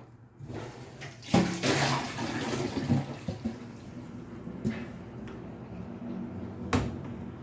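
Water running and splashing while two cups of water are measured out for steaming. There is a clatter about a second in and a couple of sharp knocks later.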